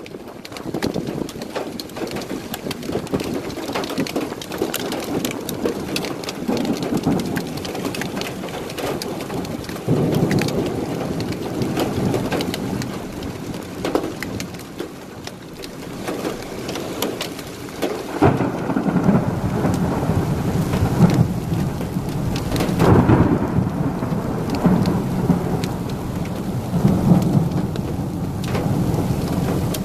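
Heavy rain pelting a car as it drives through a rainstorm: a dense patter of drop impacts over a steady wash, with a low rumbling that swells about ten seconds in and again from about eighteen seconds on.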